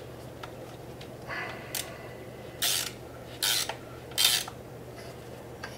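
Top cap being unscrewed by hand from a 2015 Ducati Scrambler's upside-down front fork tube: short rasps of the threads turning, three main ones under a second apart with fainter ones before them.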